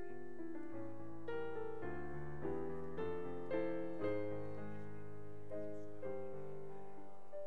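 Slow piano music: chords struck every half second or so over held bass notes.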